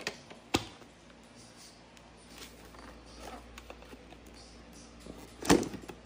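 Hard plastic body and dust bin of a cordless stick vacuum being handled: sharp clicks and knocks, with a loud click about half a second in and the loudest knock near the end, and light rustling and ticks between.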